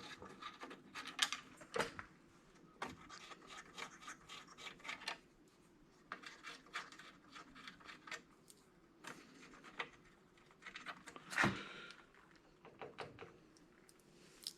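Light handling noise from dismantling scrap electronics: scattered faint clicks, taps and rubbing as circuit boards and metal parts are moved, with one sharper knock near the end.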